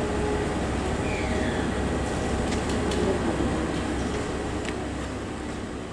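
JR Shikoku 2700 series diesel express railcar rolling slowly into the platform with its engines running, steady and low, with a few light clicks. The sound dies away near the end.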